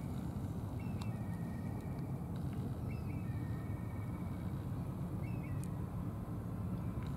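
Steady low rumble of outdoor noise, with a bird whistling three times: each call a short falling note that levels into a held tone.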